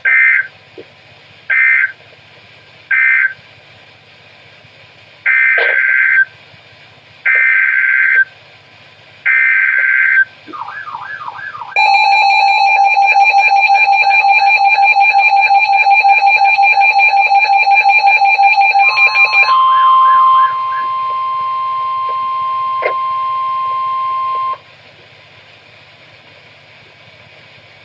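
Emergency Alert System signalling between two warnings. First come three short data bursts, the end-of-message code closing one warning. Then three longer bursts, the coded header of the next warning. Then a steady two-tone attention signal for about eight seconds, followed by a single steady alert tone for about five seconds.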